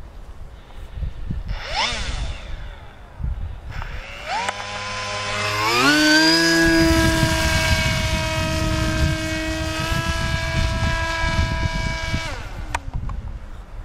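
Electric motor and propeller of a large RC foam plane whining. It rises briefly about two seconds in, is throttled up between about four and six seconds in to a steady high whine, and drops away near the end. A low wind rumble on the microphone runs underneath.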